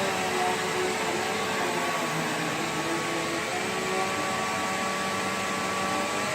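Bissell PowerGlide Platinum bagged upright vacuum running steadily: a continuous whir of motor and airflow, with faint tones that drift a little in pitch.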